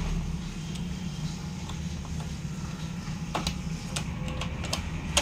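Light clicks and knocks of a plastic part being seated into a Canon inkjet printer's chassis by hand, a few sharp clicks coming about three and a half seconds in and near the end, over a steady low hum.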